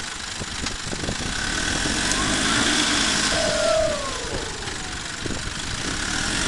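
Nissan Patrol 4x4's engine revving up under load as the truck crawls over a muddy bank, then easing back off, with a whine that rises and falls with the revs.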